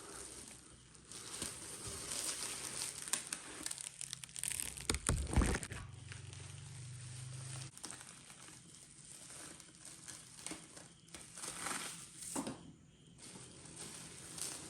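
Packaging crinkling and rustling as it is handled and pulled open, with irregular crackles that are loudest about halfway through.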